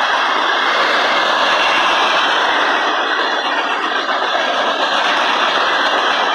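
Freight cars of a manifest train (covered hoppers, boxcars, tank cars) rolling past: a steady, loud noise of steel wheels running on rail.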